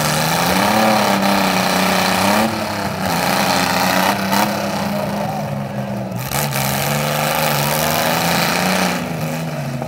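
Compact demolition-derby cars' engines revving, the engine note rising and falling again and again, with a few sharp bangs between about two and six seconds in.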